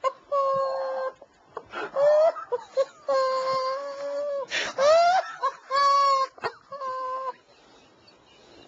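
A man's stifled laughing fit held in behind his hand: a string of about six long, high-pitched whines, each held on one note, with short gasps between them, dying away near the end. The laughter is uncontrollable.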